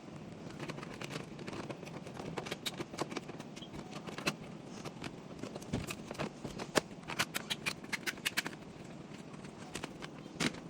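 Irregular light clicks and knocks from hands working on a washing machine's control board and its fittings, over a steady low hum. The clicks come thicker a little past the middle.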